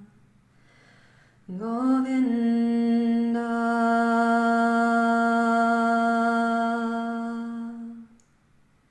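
A woman singing a Sanskrit devotional chant to Krishna, unaccompanied. After a short pause she slides up into one long held note that lasts about six seconds and fades out near the end.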